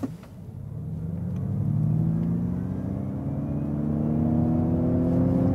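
Ford Mustang Mach-E electric crossover accelerating hard from a standstill in Untamed mode, heard inside the cabin: a low hum of several tones rising steadily in pitch as speed builds, with tyre and road noise swelling over the first two seconds.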